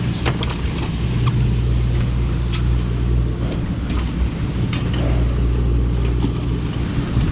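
Boat's engine running steadily under the deck, a low even drone, with a few light knocks and clicks over it.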